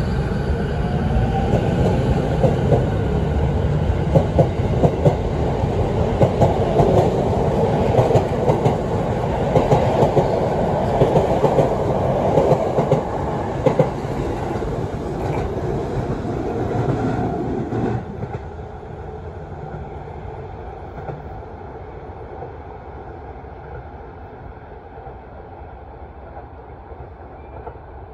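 Sotetsu 10000 series electric train accelerating away from a platform: the motors give a faint rising whine from the Mitsubishi IGBT VVVF inverter, under the rumble and the wheels clicking over rail joints. The sound drops sharply about 18 seconds in as the last car passes, then fades into the distance.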